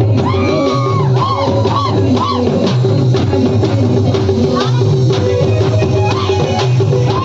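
Music with a steady drum beat and a gliding melody line over a held tone.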